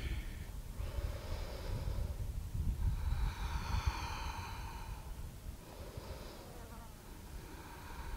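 A woman's slow, deep breaths, several soft breaths in and out, over a low rumble of wind on the microphone.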